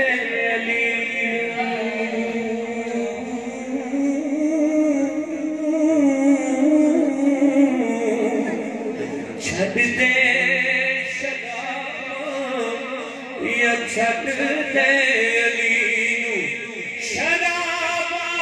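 A naat sung unaccompanied by several men's voices into microphones, with long held notes and no instruments.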